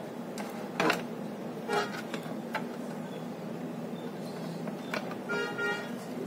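Light clicks and taps of hands working wires and a soldering iron on a circuit board in a sheet-metal case, over a steady low hum. A short pitched toot, like a distant horn, sounds about five seconds in.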